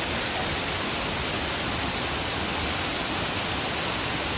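Steady, even rush of falling water from MacKenzie Falls.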